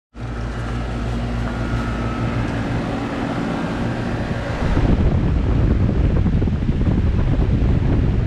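Goodman central air conditioner's outdoor unit running: a steady low hum under the rush of the condenser fan. About five seconds in it turns louder and rougher, with wind buffeting the microphone.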